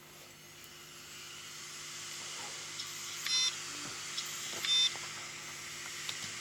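Opened Seagate Barracuda LP hard drive running with a steady hiss that slowly grows louder, and giving two short high beeps about a second and a half apart. It is a failed drive beeping during its boot cycle. A few faint clicks come from the drive.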